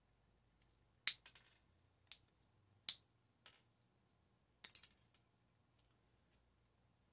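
Side cutters snipping parts off a microwave's switches and wiring: a handful of sharp snips and clicks, the loudest about a second in, near three seconds and a double one near five seconds.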